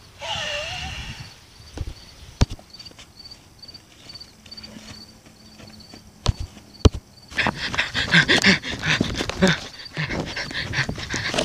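A short wavering cry at the start, then crickets chirping with a few sharp knocks. From about seven seconds in, the loud quick rhythm of someone running on grass, with the handheld camera jostling.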